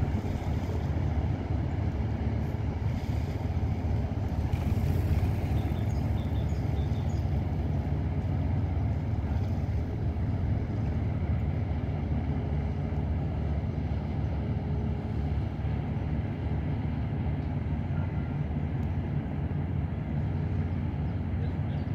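Tugboat diesel engines running steadily under load as they tow a houseboat, heard as a low drone through wind on the microphone.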